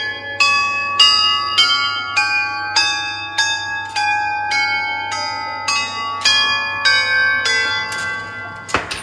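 Row of hanging metal tubes on a musical-tubes exhibit struck one after another with a small mallet, about two strikes a second, each tube ringing at its own pitch. The strikes stop shortly before a brief knock near the end.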